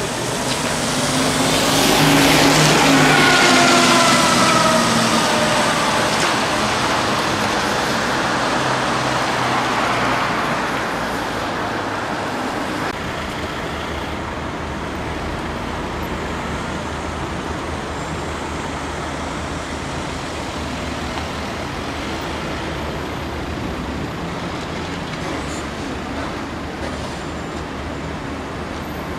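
Trolleybus passing close by, its electric drive whine falling in pitch as it goes past, loudest a couple of seconds in. After that, steady street traffic noise.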